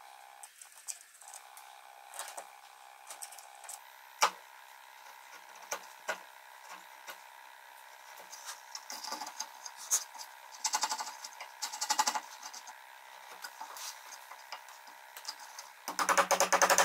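Hand chisel paring and scraping the end grain of a pine joint: short scrapes and light taps, a few sharp knocks, and denser scraping in the middle. Near the end a loud, fast rattle starts abruptly.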